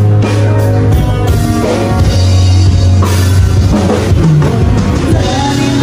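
Background music with a drum kit, guitar and a low bass line of held notes.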